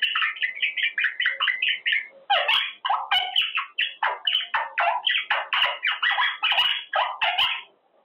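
Quaker parrot (monk parakeet) chattering in a fast, almost unbroken run of short notes, several a second, that stops shortly before the end.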